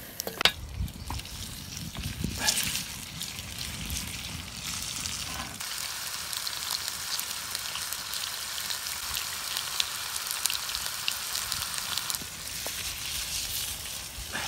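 Lamb steaks sizzling in a frying pan over a campfire: a steady hiss with small crackles. In the first few seconds there are a few sharp knocks over a low rumble.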